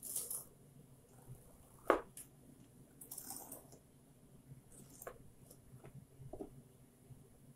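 Metal spoon scraping the soft seedy core out of zucchini strips on a plastic cutting board, in short wet scrapes with a few light clicks, and one sharp knock about two seconds in.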